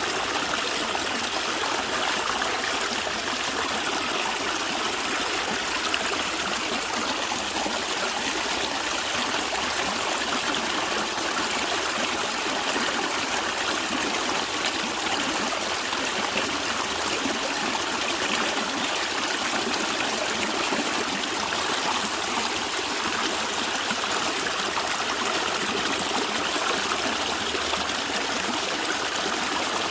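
A stream of water running and trickling steadily, with a continuous even rush.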